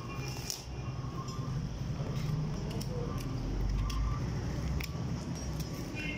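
Butcher's knife cutting meat from a hanging camel shoulder: scattered sharp clicks and cutting sounds over a steady low hum.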